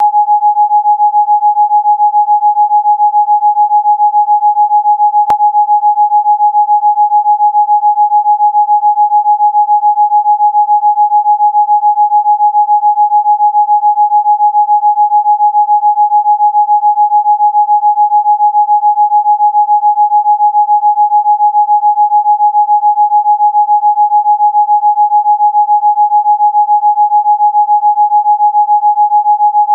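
A single electronically generated pure tone at one fixed mid-high pitch, played as a Rife frequency. It is loud and held without change, with a fast, even throb in its level. There is a faint click about five seconds in.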